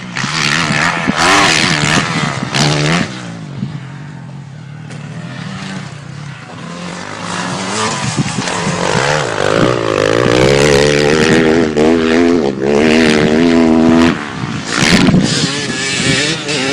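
Motocross bike engine revving up and down as it rides the track, its pitch rising and falling with each throttle change, getting louder from about eight seconds in and dropping away about fourteen seconds in.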